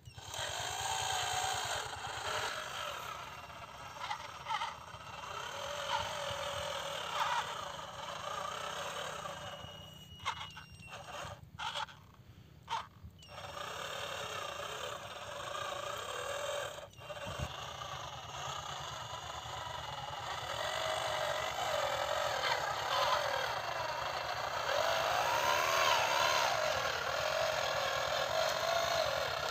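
Electric gear motors of a homemade RC tractor whining as it pulls a loaded trolley, the pitch wavering up and down with the load. The sound cuts out briefly several times about a third of the way in.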